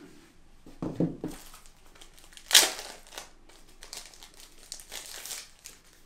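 Paper and packaging crinkling and rustling as it is handled and unfolded, in irregular bursts, the loudest crackle about two and a half seconds in.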